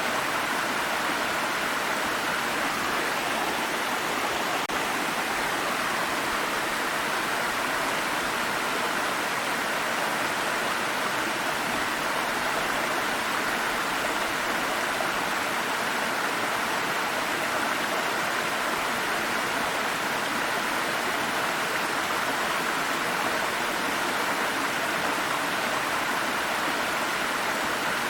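Water stream flowing over rocks, a steady even rush of running water.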